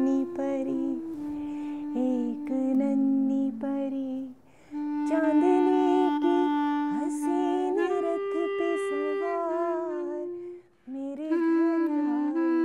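A woman singing a lullaby softly to a baby, a slow melody of long held notes, with two short breaths about four and a half and eleven seconds in.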